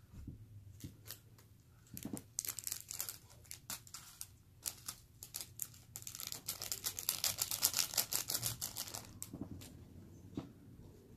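Plastic Buldak spicy-noodle packet crinkling and being torn open by hand: scattered crackles about two seconds in, then a dense run of crinkling in the middle that tails off near the end.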